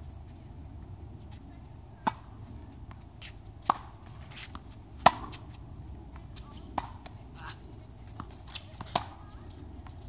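Tennis balls struck by rackets in a rally: about five sharp pops, one every one and a half to two seconds, the loudest about five seconds in, with a few faint ticks just before the last. A steady high-pitched drone runs underneath.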